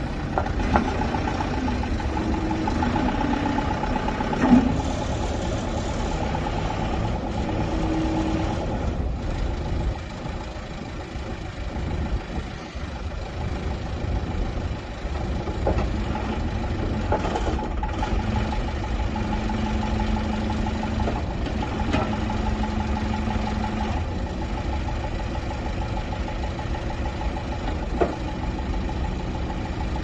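Backhoe loader's diesel engine idling steadily, with a few short metallic knocks.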